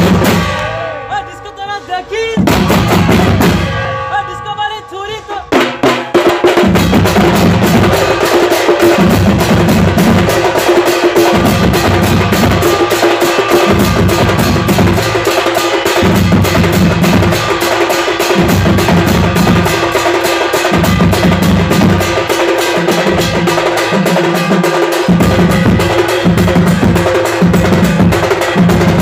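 Music with drums. It opens with sustained pitched tones that swell and fade. About five seconds in it breaks into fast, driving drumming with a repeating low drum pattern.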